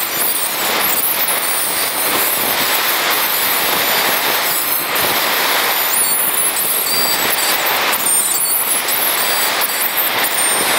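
Surf breaking on a sandy beach: a loud, steady rushing noise.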